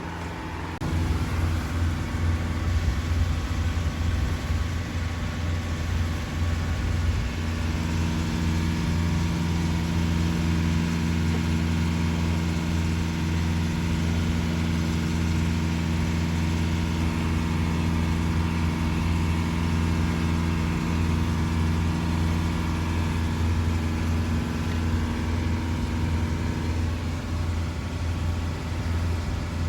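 Boat engine running steadily, a low even drone that gets louder about a second in. A second, higher steady hum joins it through the middle stretch.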